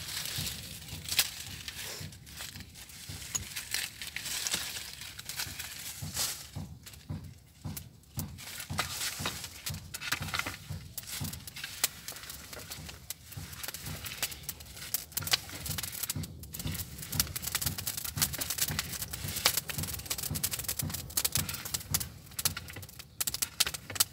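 Wood fire crackling inside a clay bread oven, with many irregular sharp crackles. Later on, a long wooden stick scrapes and knocks as it rakes the burning wood and embers.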